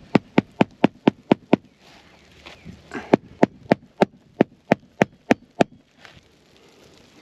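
Hammer driving roofing nails through an asphalt architectural shingle, fastening it back to the roof deck. Two runs of quick, sharp strikes, about four a second, with a pause of about a second and a half between them.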